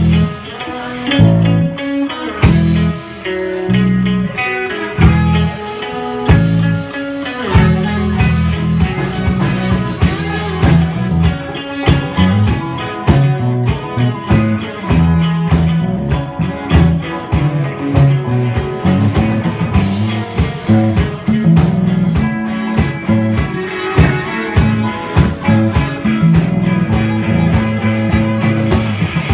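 Live blues-rock band playing loud: electric guitar, bass and drum kit, recorded close to the stage.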